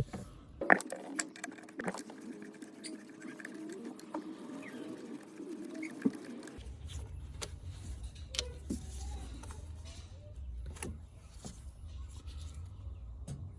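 Scattered clicks and knocks of hand tools and plastic parts as a MAP sensor is unplugged and swapped. A steady hum sits underneath and drops to a low drone about six and a half seconds in.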